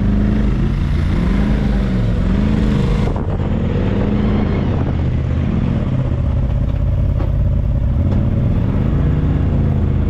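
Side-by-side UTV engine running at low speed, its pitch rising and falling several times with light throttle as the machine creeps forward at walking pace. A steady hiss sits over the engine for the first three seconds, then drops away.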